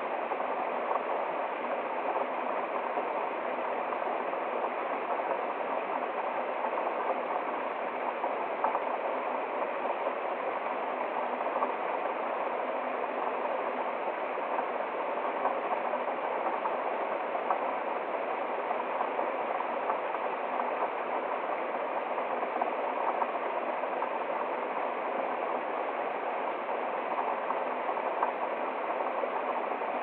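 A small woodland stream spilling over a low waterfall and rocks: a steady rush of splashing, burbling water.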